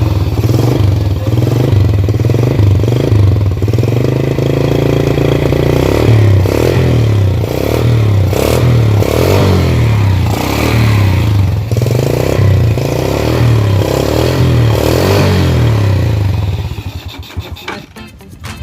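Yamaha Jupiter Z underbone motorcycle's small single-cylinder four-stroke engine running loud and being revved up and down, then dying away near the end.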